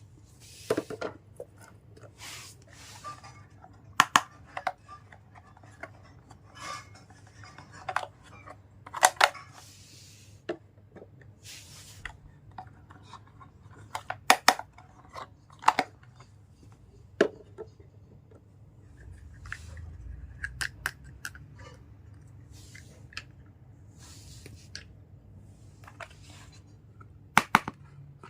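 Toy packaging being opened and handled: irregular sharp clicks, short snips and rustles of plastic and cardboard, spaced a second or two apart.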